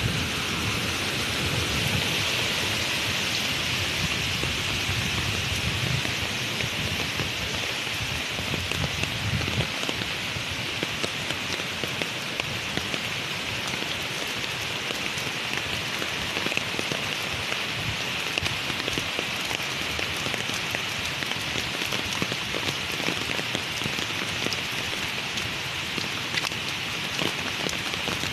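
Heavy rain of a rainstorm falling steadily on hard surfaces: a dense, even hiss of drops. A low rumble underlies it for roughly the first ten seconds, then fades out.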